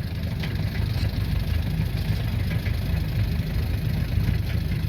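Small boat's outboard motor running at low speed, a steady low drone.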